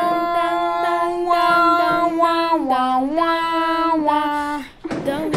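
Unaccompanied singing voice holding one repeated note in quick syllables, dipping in pitch about halfway through, breaking off briefly near the end and then starting again.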